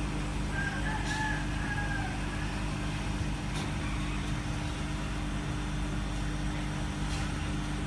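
Steady low mechanical hum with fixed low tones, with a few faint high tones in the first two seconds and three light clicks spread through.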